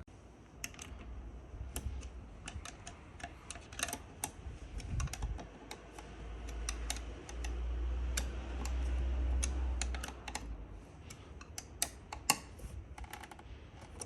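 A run of light, irregular clicks and taps, several a second, with a low rumble for a few seconds in the middle.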